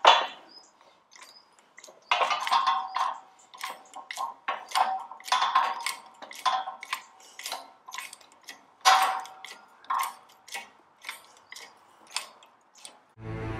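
Shop press being worked to drive a drift down onto a stuck valve guide in a Ferguson TED20 cylinder head: a run of sharp, irregular metallic clicks and clinks, a few a second, some with a short ringing tone.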